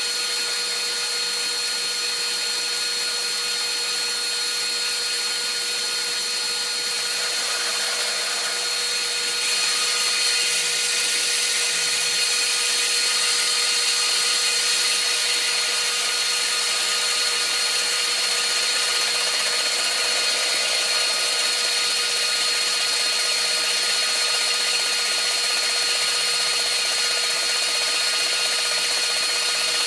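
Metal lathe running, taking the final finishing cut on a round boss turned on a rectangular bar: a steady machine whine with a hiss of the tool cutting. It gets slightly louder about ten seconds in.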